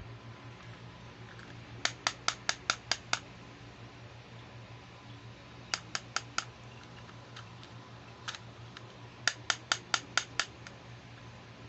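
Fingertips tapping quickly on a small hard-plastic toy trolley case, in runs of about five or six sharp taps a second: a run of seven, a run of four, a single tap, then another run of seven. A low steady hum lies underneath.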